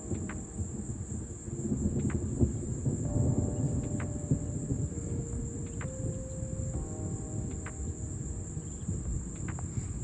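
A steady, high-pitched insect trill runs throughout. From about a second and a half in, a low rumble of distant thunder swells up underneath it.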